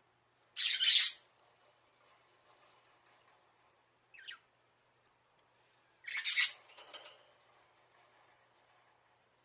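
Budgerigars calling: two loud, harsh calls, one about half a second in and one about six seconds in, with a short falling chirp between them.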